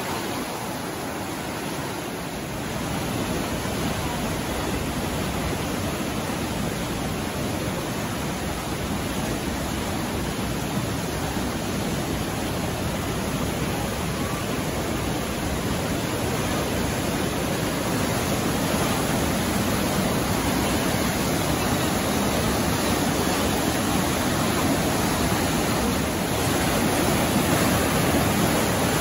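Mountain creek in flood, high muddy water rushing steadily through a narrow rock gorge with whitewater; the rush grows a little louder near the end.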